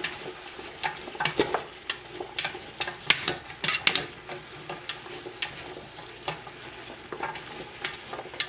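Beef and chopped carrots, onions and celery sizzling in bacon fat in an enamel stockpot while being stirred with a slotted spatula. A steady frying hiss with sharp ticks and pops at irregular moments.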